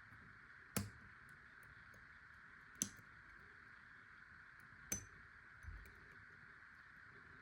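Faint metallic clicks of lock picking in an Ace A527 padlock: a hook pick and tension wrench clicking in the keyway, three sharp clicks about two seconds apart with a few fainter ticks, over a steady faint hiss.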